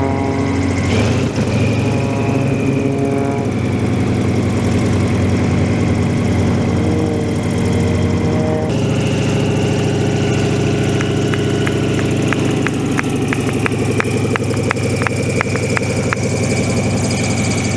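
Sukhoi Su-26M's nine-cylinder M-14P radial engine and propeller running at low power on the ground while the aerobatic plane taxis, a steady drone whose pitch shifts a little in the first few seconds. A quick run of faint ticks comes in the second half.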